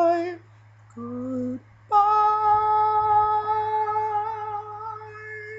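A man singing a cappella on open vowels: a held note that ends just after the start, a short lower note about a second in, then a jump to one long high note held steady with little vibrato from about two seconds in to the end.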